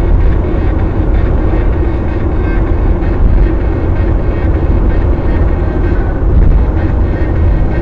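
Steady road noise of a car driving at speed on a highway, heard from inside the car: a loud low rumble with a steady hum running through it.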